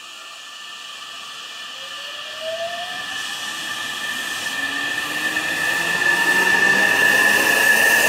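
Hankyu 9000 series electric train accelerating away from a station stop. Its motor whine rises in pitch and grows steadily louder as the cars pass close by.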